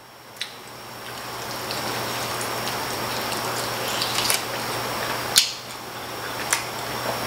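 Close-up eating sounds of a chicken wing being bitten and chewed, with a few sharp wet smacks among a steady mouth noise.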